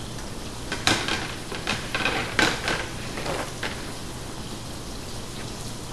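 Ground-beef hamburger patties frying in a non-stick pan: a steady sizzle with a scattering of sharp crackles and pops between about one and four seconds in.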